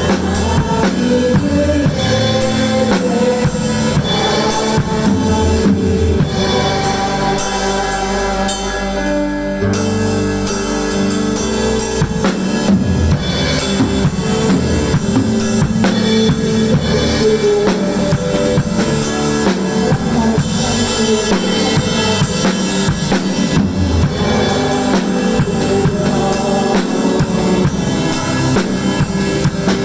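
Drum kit played along with a recorded worship song, its bass drum, snare and cymbals over the backing music, with a brief lull in the drumming about nine seconds in.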